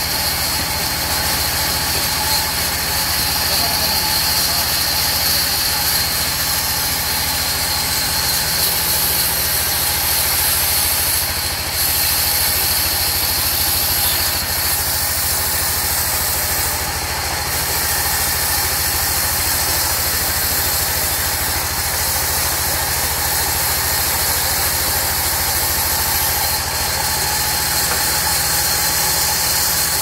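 Vertical band saw running and ripping a mahogany slab lengthwise: a steady machine drone with the even noise of the blade cutting through the wood.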